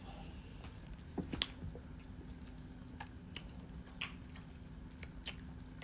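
Faint chewing: a person eating, with small scattered mouth clicks over a low steady hum.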